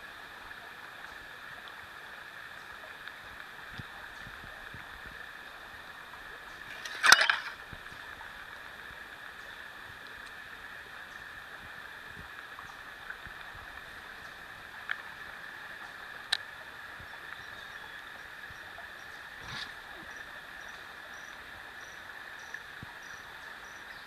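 Steady chorus of insects trilling in several high, even tones over the faint rush of river water, with one short loud knock about seven seconds in and a few faint clicks later.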